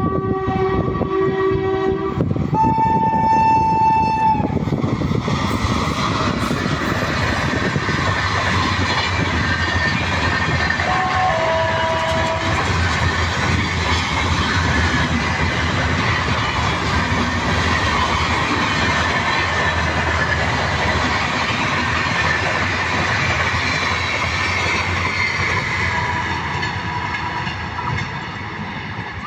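Passenger train sounding two horn blasts in the first few seconds, then running past at speed with loud, steady wheel-and-rail noise that fades near the end as it draws away.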